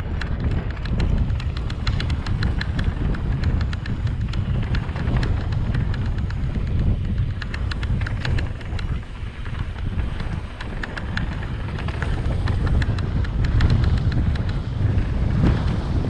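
Wind buffeting a helmet-mounted action camera's microphone as a mountain bike rolls fast down a dirt singletrack, the tyres running over the dirt with a constant scatter of small clicks and rattles. It gets a little louder as the bike speeds up near the end.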